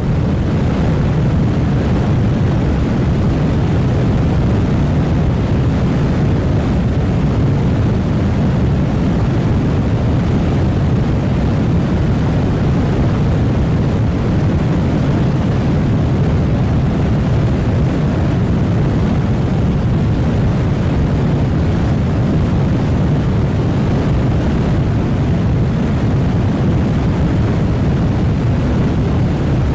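River water rushing past in a steady, low rumble that does not change.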